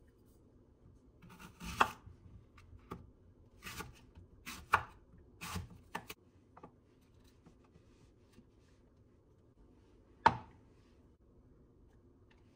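A kitchen knife cuts a green apple on a bamboo cutting board in a run of about seven separate chops. A single sharp knock about ten seconds in is the loudest sound.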